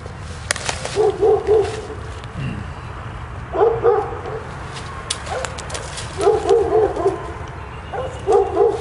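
Dogs barking in the distance, in bouts of two to four quick barks every couple of seconds.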